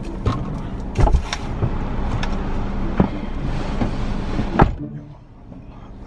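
Sounds inside a car cabin over a steady low hum: a few sharp knocks and handling noises, then a rush of noise that ends in a thud near five seconds in, after which the cabin is noticeably quieter.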